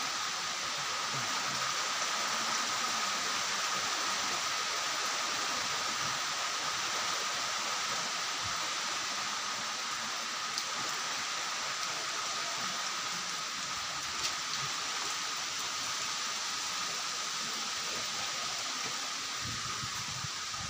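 Steady hiss of typhoon rain falling, mixed with wind in the trees and banana leaves.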